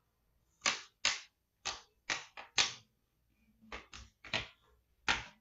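Plastic display bezel of a Dell Inspiron 5585 laptop being squeezed back onto the screen lid, its clips snapping into place in a string of about ten sharp, irregular clicks.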